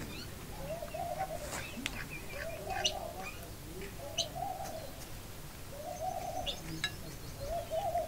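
Birds calling: a low warbling call repeats about every second and a half, with small birds' short, high chirps scattered over it.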